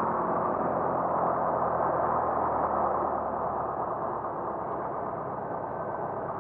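Light single-engine aircraft's piston engine and propeller heard from inside the cockpit, running steadily during the landing. The noise eases down a little about four seconds in.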